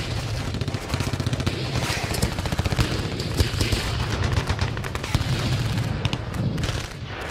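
Logo-intro sound effect: a dense, rapid rattle of sharp cracks like machine-gun fire over a low rumble.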